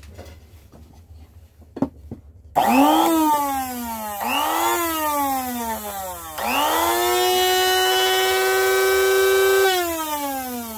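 Blender motor with a small wheel on its shaft, switched on and off three times. Each time it whines up to speed and then winds down: two short bursts, then a longer run of about three seconds at steady speed before it coasts down.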